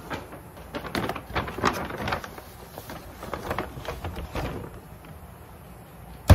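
Plastic food containers and a paper bag being handled and set into a glass-door mini fridge: a string of irregular rustles and light knocks, then the fridge door shut with a single loud thump at the very end.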